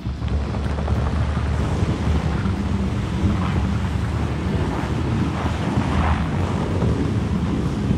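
Pickup truck engine running steadily at low revs while it moves off, with wind rumbling on the microphone.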